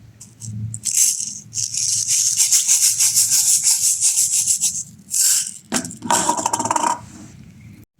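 Plastic bingsu beads poured out of a container, a fast dense rattle of many small beads lasting a few seconds, then a second shorter rattle about six seconds in.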